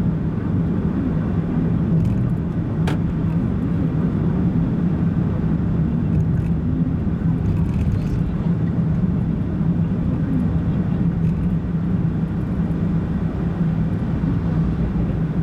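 Steady engine and road noise of a car driving, heard from inside the cabin, a low hum with one sharp click about three seconds in.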